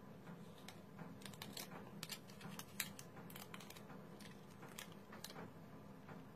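Faint rustling and light ticks of a paper nail sculpting form being handled and fitted onto a practice finger, over a low steady hum.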